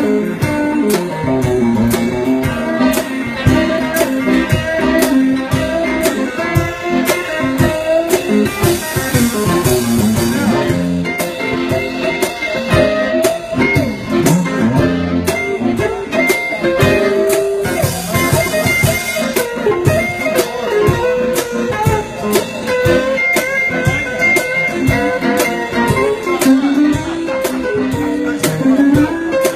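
Live blues jam: archtop electric guitar and accordion playing together over a steady beat.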